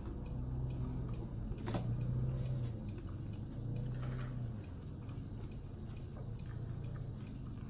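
A wall clock ticking steadily, with a low hum that swells and fades three times.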